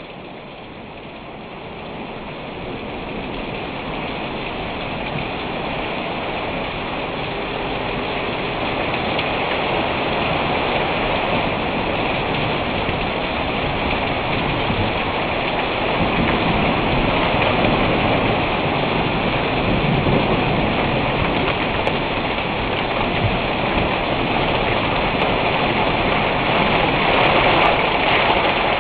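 Heavy rain falling in a thunderstorm, a steady hiss that builds gradually in loudness over the first ten seconds or so and then holds.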